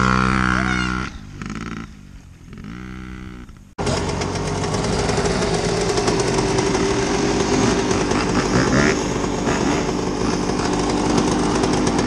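Dirt bike engines. First a steady run at constant revs, which drops off about a second in and is followed by a few quieter rises and falls in revs. Nearly four seconds in the sound cuts abruptly to a louder, rougher dirt bike engine running steadily.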